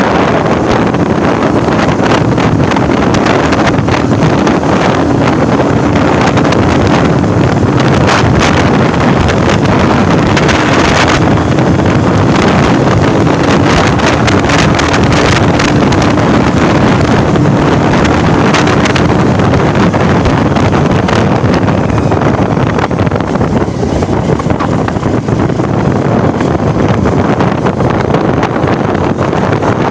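Motorcycle being ridden on a road: loud wind rush over the microphone, with the engine's steady hum underneath that fades into the wind after about two-thirds of the way through.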